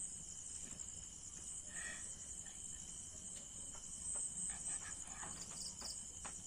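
A steady, high-pitched chorus of insects trilling, with a few faint clicks.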